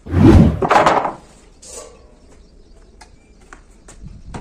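A heavy old wooden plank scraped and knocked about on a concrete floor, loud for about a second at the start, then a softer scrape and a few light knocks as the wood is handled.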